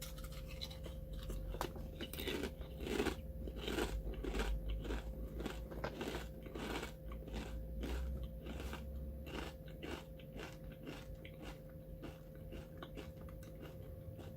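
A person eating garlic-and-edamame potato chips: a quick run of crunches from biting and chewing, heaviest in the first half and thinning out toward the end.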